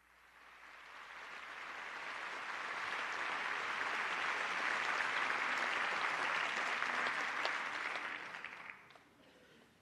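Concert audience applauding, swelling over the first few seconds, holding steady, then dying away near the end.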